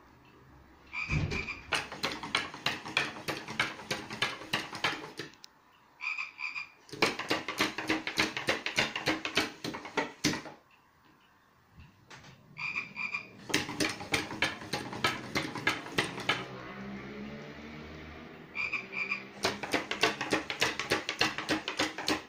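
Lego WeDo 2.0 frog robot walking, its small motor and plastic gear-driven legs making a rapid clicking clatter in four bursts of about three to four seconds, with short pauses between as it stops and changes direction. A brief higher-pitched beep comes just before each burst.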